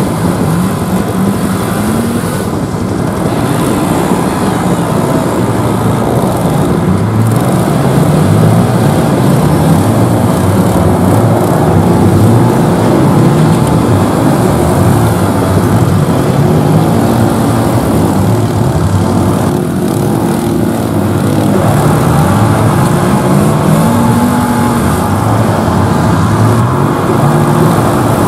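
ATV and car engines revving up and down over and over, several rising and falling revs overlapping as the vehicles spin through snow.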